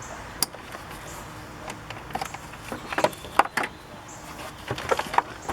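Sharp clicks and knocks of hard plastic car-door trim and parts being handled and pried, with one click about half a second in and a cluster of them between two and four seconds in.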